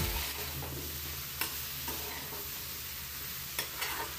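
Flat beans and potatoes sizzling steadily in oil in a steel kadai while a spatula stirs them, scraping against the pan a few times.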